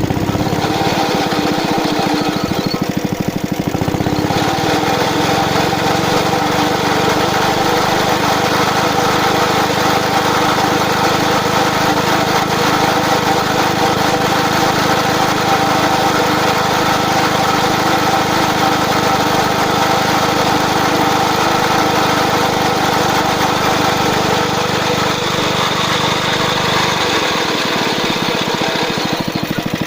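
A Suffolk Squire cylinder lawn mower's 75cc two-stroke Suffolk petrol engine running steadily. Its tone deepens about four seconds in and lightens again near the end.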